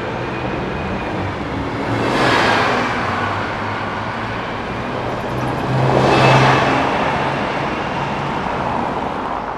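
Buses driving past with engines droning under tyre and road noise. The sound swells twice as vehicles pass, about two seconds in and again, louder, about six seconds in, and fades away near the end.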